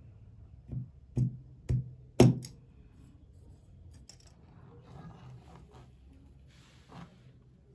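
Hands handling a GoPro Hero 11 camera and its parts on a hard surface: four sharp knocks and clicks about half a second apart, the last the loudest, then faint rustling.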